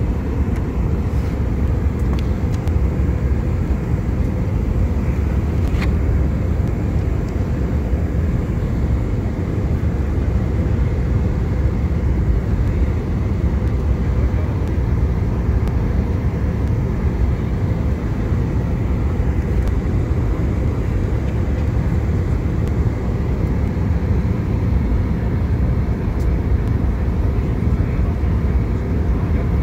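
Steady low roar inside the cabin of an Airbus A319 in flight, the engine and airflow noise heard from a passenger seat. A few faint clicks sound near the start and about six seconds in.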